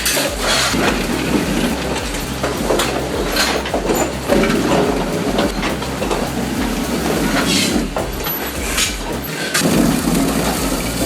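Heavy wood chipper or tree shredder running under load, its steady engine drone broken by irregular cracks and crunches of wood being torn apart.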